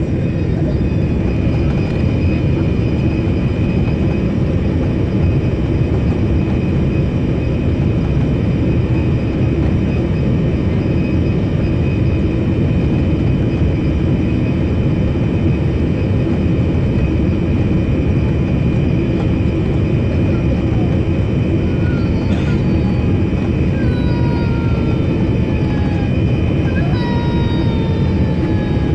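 Steady cabin rumble of airflow and jet engines inside an Air India Boeing 787 Dreamliner descending on approach, with a constant high tone over it. In the last several seconds, a few short whines fall in pitch.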